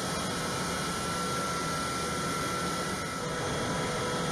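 Steady machinery drone and hiss with a thin, high, constant whine over it.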